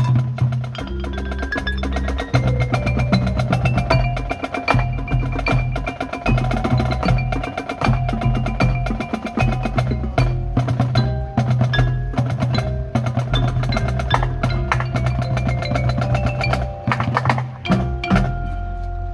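Marching band music led by percussion: rapid drum and wood-block strokes with mallet-keyboard notes and sustained pitched tones. The music breaks off about eighteen seconds in.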